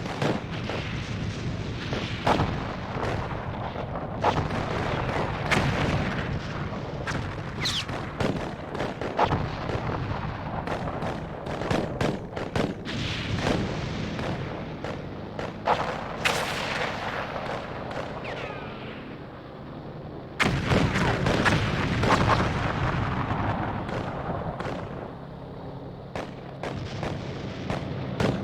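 Battle sound effect: a steady stream of gunshots and artillery booms over a continuous low rumble, with a few brief whistling tones. Everything suddenly gets louder about twenty seconds in.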